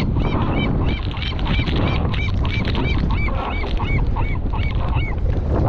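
A bird calling in a fast series of short, arched squealing notes, several a second, that stop about five seconds in. Wind noise on the microphone runs underneath.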